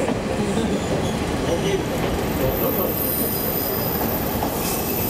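Ride noise inside a JNR KiHa 37 diesel railcar running along the line: a steady rumble of the engine and the wheels on the rails. A thin high squeal sets in about two seconds in.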